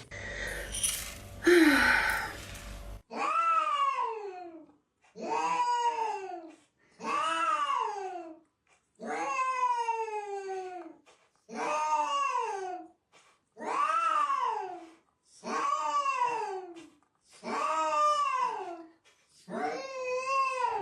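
A domestic cat yowling over and over: about nine long, drawn-out calls, each rising then falling in pitch, roughly two seconds apart. A short burst of noise comes first, before the calls begin.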